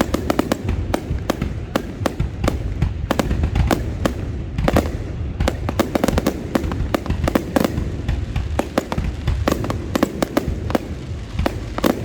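Fireworks display: a dense, unbroken run of sharp cracks and bangs, several a second, over a continuous low rumble.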